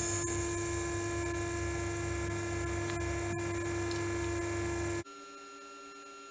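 Electric motor and hydraulic pump salvaged from a sausage machine running steadily with a hum, driving the ram of a homemade tube bender as it bends heavy-wall steel tube. It cuts off abruptly about five seconds in, leaving a fainter steady hum.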